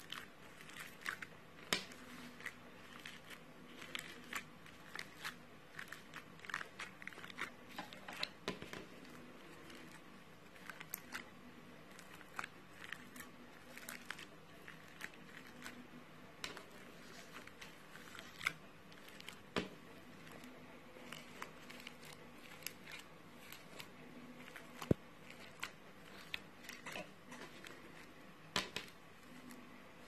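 Crunchy foam-bead slime being pressed and kneaded by fingers: irregular crackling and popping clicks as the beads are squeezed through the sticky slime.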